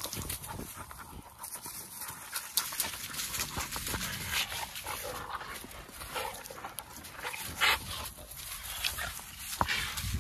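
Several young dogs playing tug and wrestling over a hanging jute bite toy: short, irregular dog sounds with panting and scuffling, a few louder brief bursts in the middle.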